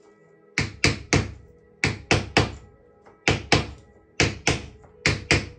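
Wooden mallet tapping along the spline of a pressed cane chair seat, driving it down into the seat groove. Sharp knocks come in quick groups of about three, roughly a dozen in all.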